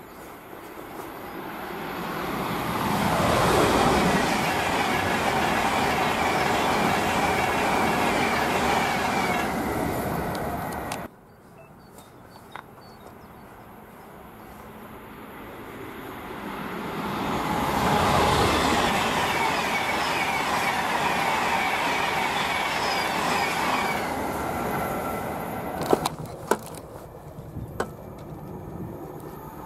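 Two trains passing at speed, one after the other. Each grows loud within a few seconds and holds for several more. The first cuts off suddenly about eleven seconds in, and the second fades away gradually, followed by a few sharp clicks near the end.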